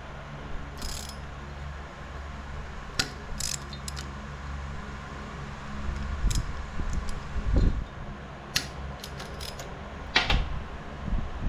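Hand tools and metal engine parts clinking while a Honda N360 racing engine's bottom end is taken apart: scattered sharp metallic clicks, with dull knocks about six and eight seconds in, over a steady low hum.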